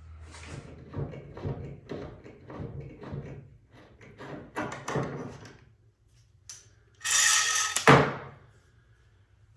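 Scattered light knocks and taps, then about seven seconds in a loud scraping slide lasting about a second that ends in a hard thud.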